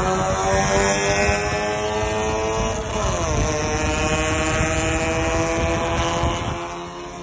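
Car engine accelerating hard, its pitch climbing steadily. About three seconds in the pitch dips and climbs again, as at a gear change, and the sound drops off near the end.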